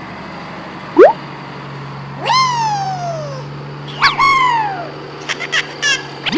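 Cat-like meowing: two long meows that drop in pitch, with a quick run of short high chirps near the end, over a steady low hum.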